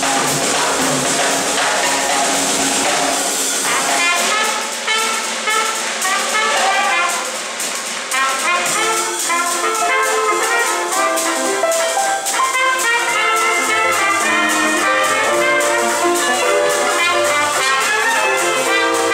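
Dixieland jazz band playing live, with trumpets, clarinet and trombone carrying the lines over double bass and drums. The sound thins out about four seconds in and the full ensemble builds back up around eight seconds in.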